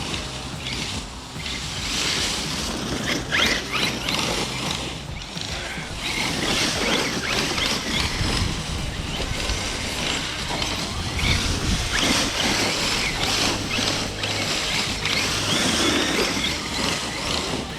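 Arrma Kraton EXB RC truck being driven hard, its Spektrum Firma 1250Kv brushless motor whining up and down with the throttle over the rough noise of tyres and drivetrain on the ground.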